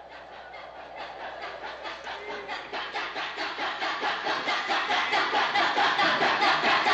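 Film trailer soundtrack: a rhythmic, pulsing crowd-like noise at about three beats a second, swelling steadily louder.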